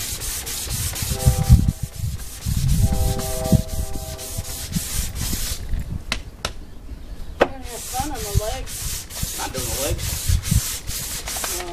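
Hand-sanding a white-painted wooden tabletop with sandpaper held flat under the palm, in quick back-and-forth strokes of about three or four a second. The sanding stops for about two seconds midway, with a couple of sharp clicks, then resumes. This is smoothing the old paint so that new paint goes on smoothly.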